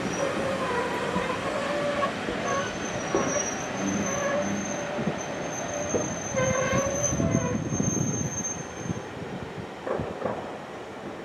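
Railway coach running on the rails into a station and slowing, heard from inside the compartment through an open window. Its wheels make a steady rumble and clatter, with metallic squeals that come and go, including a high thin one for several seconds in the middle. The sound eases off near the end as the train slows.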